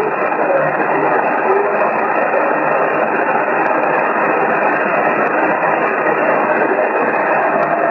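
Steady hiss and static of an empty CB channel from a Yaesu radio speaker, the receiver open with no station coming through clearly.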